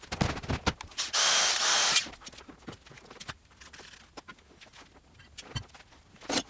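Metalwork while making sheet-steel repair panels: scattered clicks and knocks, with a loud burst from a power tool lasting about a second, about a second in.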